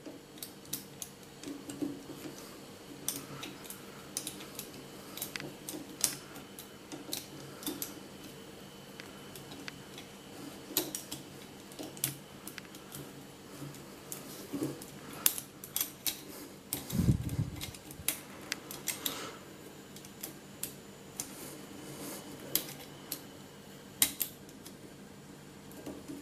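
Home-made wire lock picks working inside a rusty four-lever Squire 660 padlock: irregular small metallic clicks and scrapes as the pick wire lifts the levers against heavy tension on the bolt. A single brief low thump about two-thirds of the way through.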